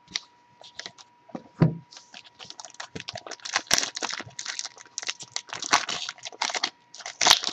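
Trading-card pack wrappers being torn open and crinkled, with cards being handled: a rapid, irregular run of small crackles and rustles. A faint steady tone hums underneath.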